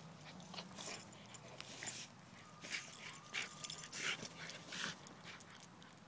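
Dog rolling and squirming on its back on a grass lawn: a run of short rustling swishes, loudest in the middle, dying away near the end as the dog settles.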